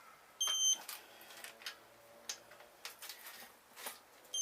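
Two short, high-pitched electronic beeps, one near the start and one right at the end, with faint clicks of the wrench and socket between them: a digital torque wrench signalling that a crankshaft main cap bolt has reached the set 65 lb-ft.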